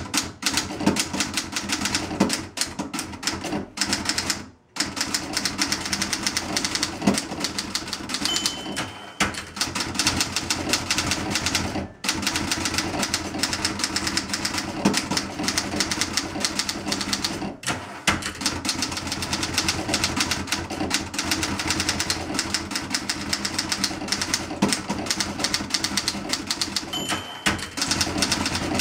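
Fast typing on a 1960 Olympia SG-1 standard manual typewriter: a rapid, continuous clatter of keystrokes with a few short pauses. The carriage's margin bell rings briefly twice, about nine seconds in and again near the end.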